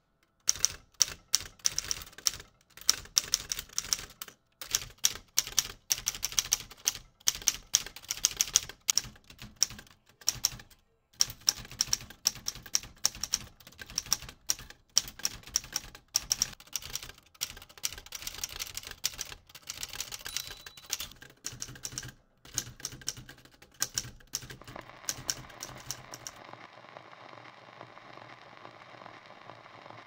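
Keystrokes on an old manual typewriter with round keytops: a fast, irregular run of sharp typebar clacks in bursts with short pauses. The typing stops a few seconds before the end, leaving a steady hiss.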